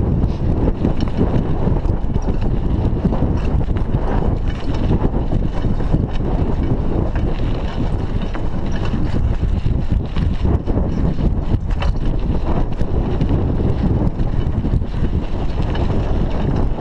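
Wind buffeting a chest-mounted GoPro's microphone as a mountain bike rolls along a bumpy dirt road. Under it are a steady tyre rumble and scattered small clicks and rattles from the bike.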